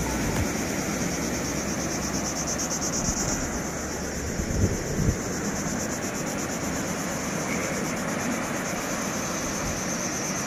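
Surf breaking and washing on a sandy beach, a steady rushing noise, with a constant high-pitched insect drone from the beach vegetation over it. Wind buffets the microphone in a couple of low thumps about halfway through.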